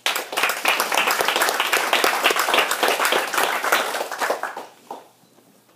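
Small audience clapping in welcome, dying away about four and a half seconds in.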